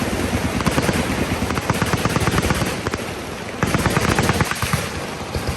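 Machine guns firing fully automatic, rapid overlapping bursts with a short lull about three seconds in.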